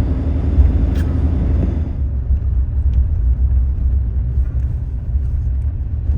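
Pickup truck driving through snow, a loud steady low rumble; a higher hiss over it drops away about two seconds in.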